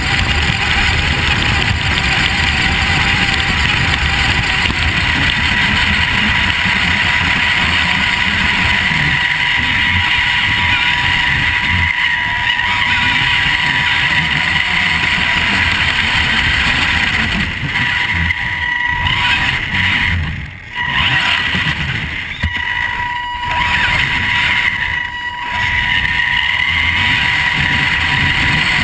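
Onboard sound of a Vaterra Twin Hammers RC truck driving over grass: a steady whine from its electric motor and drivetrain over a rough rumble of tyres and chassis. The sound drops briefly three times in the second half.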